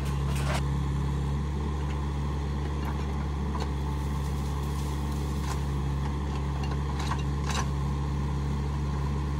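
Mini excavator's diesel engine running steadily while it works, a constant low hum, with a few faint clicks.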